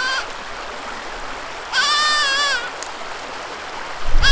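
Spanish goat kids bleating high-pitched: the end of one bleat at the start, a full bleat of about a second around the two-second mark, and another starting near the end. A steady rush of creek water runs underneath, and a low rumble comes in near the end.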